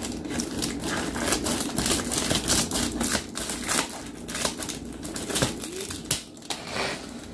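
Scissors snipping through a plastic padded mailer, with the plastic crinkling and crackling as it is cut and handled: many short, irregular snips and rustles.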